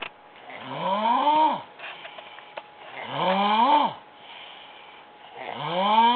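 A sleeping woman snoring loudly: three long pitched snores about two and a half seconds apart, each rising in pitch and then dropping off, with softer breathy breaths between them.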